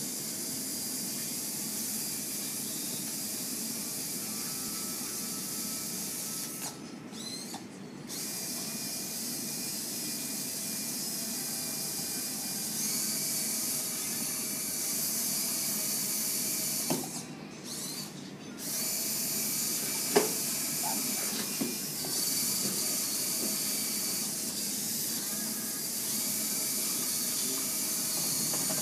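Steady hiss of background noise with a few small clicks and knocks, one sharper click about two-thirds through; the hiss drops out briefly twice.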